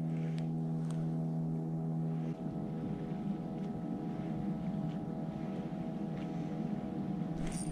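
Boat motor running steadily at an even pitch; its lowest tones drop away about two seconds in, leaving a lighter, steady hum.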